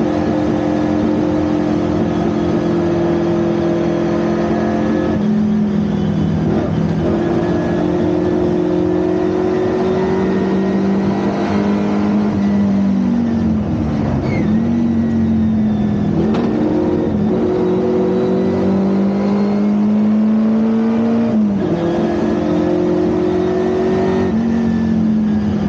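Ford Anglia 1200 race car's four-cylinder engine running hard at racing speed. Its pitch climbs slowly in each stretch and drops sharply about 5, 13 and 21 seconds in, at gear changes or lifts off the throttle, with a brief dip and pick-up in the middle.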